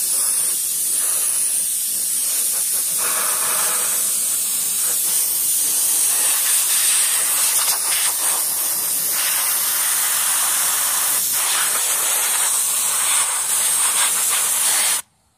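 Loud, steady hiss of a cleaning spray jet worked over an RC truck's chassis, cutting off abruptly near the end.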